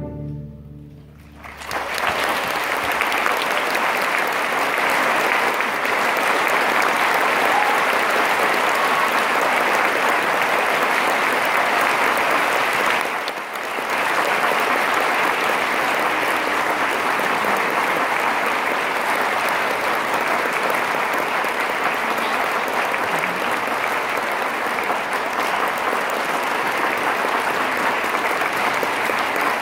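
The last chord of a string orchestra rings away in the first second. Then a large audience applauds steadily, with a momentary dip about halfway through.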